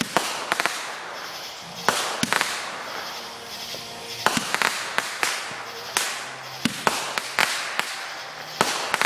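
Consumer fireworks going off: a string of sharp bangs and cracks, mostly in quick clusters of two or three about a second apart, with a steady hiss between them.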